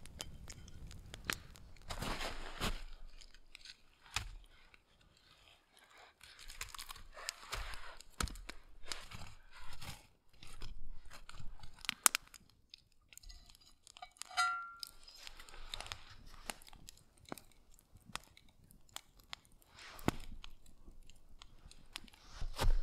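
Irregular crunching, rustling and sharp clicks from hands handling food and gear while cooking over a campfire, with a brief squeak about halfway through.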